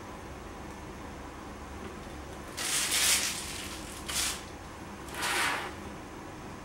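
Handling noise while piping a whipped-cream rosette onto a cake: three short rustling scrapes, the first and longest a little over two seconds in, then two more about a second apart, from the piping bag and the turned cake stand.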